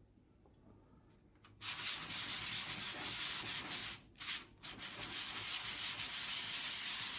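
Sandpaper rubbed by hand over a thermostat housing's gasket surface, cleaning it for fresh gasket maker. It is a steady scratchy hiss starting about a second and a half in, with a short pause around the middle.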